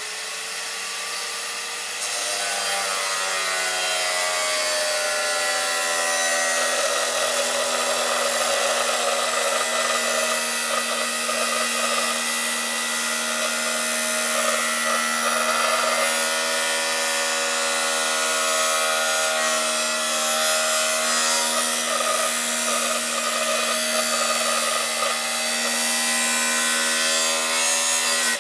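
Angle grinder with a cut-off disc cutting scrap steel: a steady high whine with a gritty hiss of the disc biting the metal, growing louder about two seconds in as the cut gets going.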